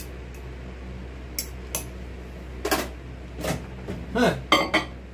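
Cup of liquid soft-bait plastic being handled at a microwave: two light clicks, then a quick run of knocks and clinks in the second half, over a low steady hum.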